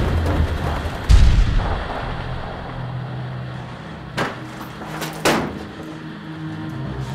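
Film sound design: a deep boom about a second in gives way to a low, steady drone. Sharp cracks like gunshots follow, one about four seconds in and a close pair about a second later.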